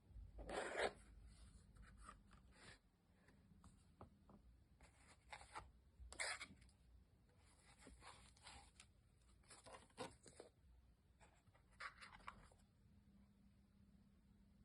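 Faint, irregular rustling and scraping of packaging being handled and opened by hand, in a dozen or so short bursts.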